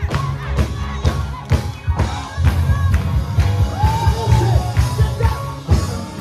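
Live gospel praise band playing an upbeat song, with electric guitar, bass guitar and keyboards over a heavy bass line and a fast steady beat, a lead singer and the congregation singing and shouting along. The music thins out near the end.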